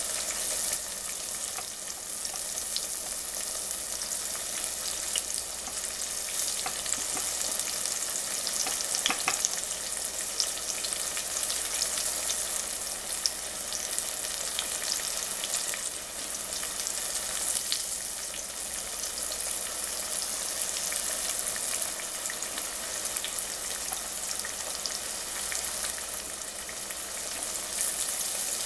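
Flour-dredged squash slices deep-frying in hot grease: a steady sizzle with scattered crackles and pops.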